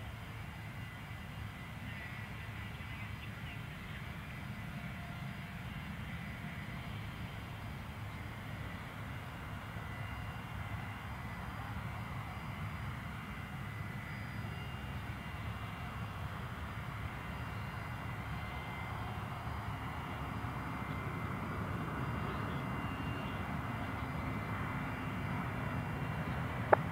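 Distant jet airliner engines, a steady low rumble that slowly grows louder over the last third as a Singapore Airlines Airbus A350-900 on final approach draws nearer.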